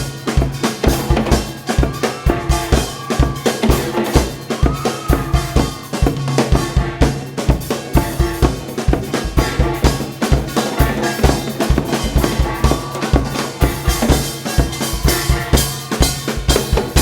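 Instrumental passage from a live gugak fusion band: a drum kit keeps a quick, steady beat of kick and snare under a sustained low note, with a thin melody line above and no singing.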